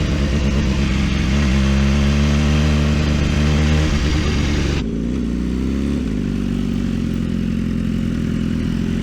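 BMW S1000RR's inline-four engine running on the move, its note rising and falling with the throttle over a rush of wind. About five seconds in, the wind noise drops away abruptly and the engine settles to a lower, steady note.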